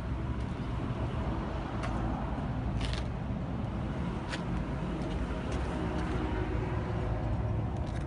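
Yutani YS750-2 excavator's diesel engine running steadily with a low rumble, with a few short sharp clicks or clanks about three and four seconds in.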